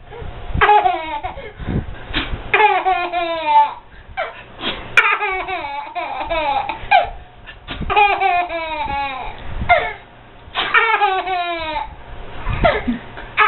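Baby boy laughing hysterically in about five bouts, each a quick string of giggles falling in pitch, with short breaths between. The laughter is set off by his father's sneezes.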